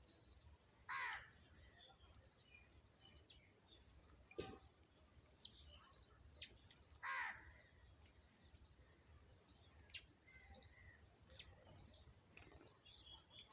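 Birds calling: two loud, harsh calls, about a second in and about seven seconds in, with scattered short, high chirps between.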